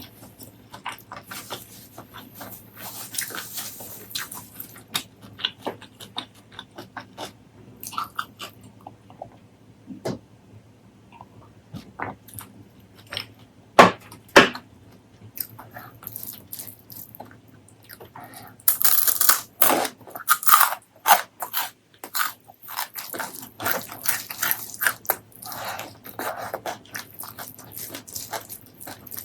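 Close-miked eating: wet chewing and crunching of fried food, with scattered clicks and crackles. Two sharp loud clicks come about halfway through, and a dense burst of crunching follows a few seconds later.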